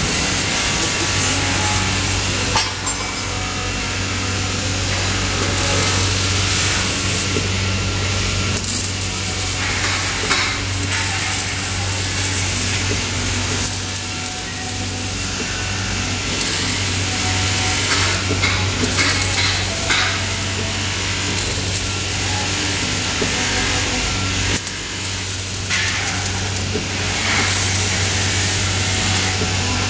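Electric arc welding on a steel frame held in a jig: the arc crackles and sizzles in spells, with short breaks between welds, over a steady low hum.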